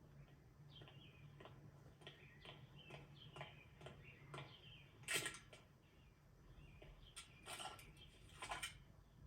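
Near silence with faint bird-like chirps and a scatter of soft clicks, three of them louder, about halfway through and near the end.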